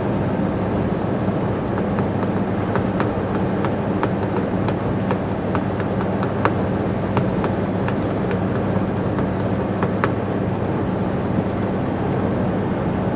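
Iveco truck's cab while cruising on the highway: steady engine drone under road and tyre noise, with scattered light clicks and rattles.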